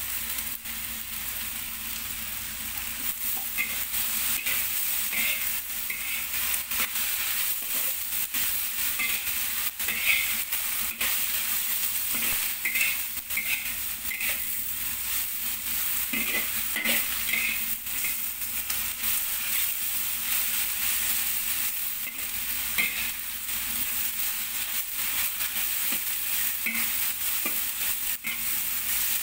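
Cabbage, greens and carrots sizzling in a hot oiled iron wok while a spatula stirs and tosses them. The spatula scrapes and clicks against the wok at irregular intervals.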